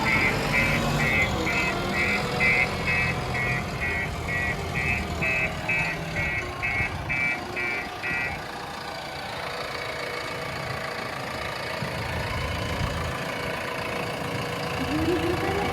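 Heavy diesel engine running at idle, with a vehicle's reversing alarm beeping about twice a second that stops about eight seconds in.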